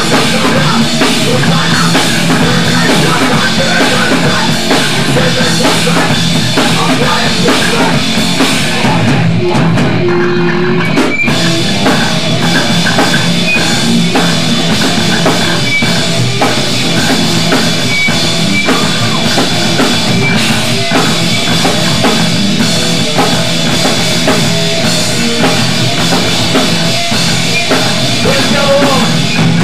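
Hardcore punk band playing loud rock music with drum kit and guitar. The high end thins out for a couple of seconds near the middle, with a brief break just after.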